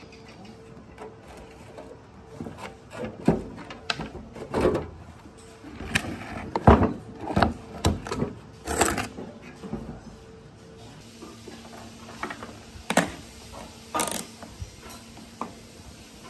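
Irregular clinks, knocks and scrapes of metal parts being handled and worked loose during hands-on disassembly, thickest in the middle and sparser toward the end.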